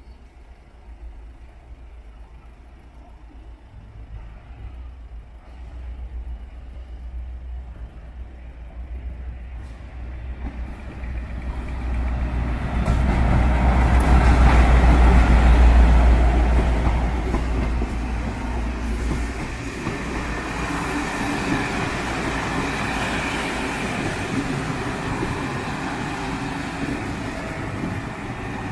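Class 57 diesel locomotive approaching and passing close by, its engine rumble building to its loudest about halfway through. Then a long rake of coaches rolls past with a steady clatter of wheels on the rails.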